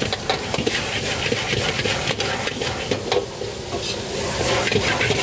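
Food frying and sizzling in a pan while a utensil stirs and scrapes it, with many quick clicks and knocks.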